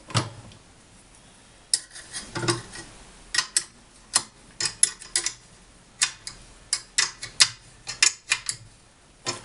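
A single knock, then from about two seconds in an irregular run of sharp metallic clicks and taps, a few a second, as small metal parts of a homemade jigsaw table's blade guide are adjusted by hand.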